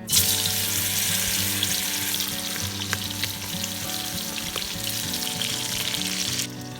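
Food frying in hot oil: a loud sizzling hiss with scattered crackles and pops that starts suddenly and cuts off about six and a half seconds in.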